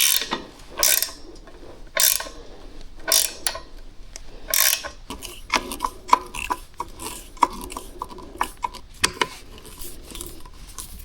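Hand tools tightening bolts: a ratchet clicking in short strokes about a second apart, then quicker light metallic clicks and clinks.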